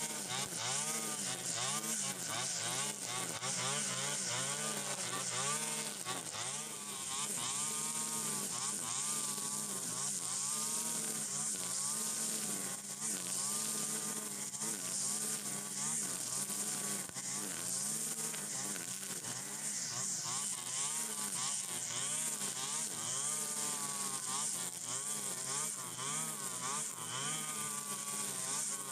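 Stihl FS 120 brush cutter's small two-stroke engine running continuously, its pitch rising and falling again and again as the operator swings it through dense, tall cogon grass.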